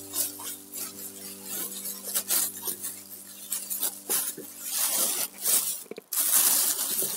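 Thin black plastic bag crinkling and rustling as hands open it, a string of short crackles with a denser stretch near the end. A held background music chord fades out about five seconds in.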